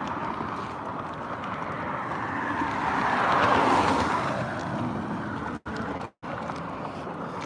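Road traffic: car tyre and engine noise, with one vehicle growing loud as it passes about three seconds in and then fading. The sound cuts out twice briefly near the end.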